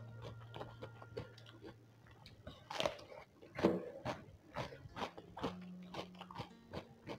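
Close-miked chewing of a mouthful of raw greens with sambal: quick, irregular wet mouth clicks and crunches, with a couple of louder smacks near the middle.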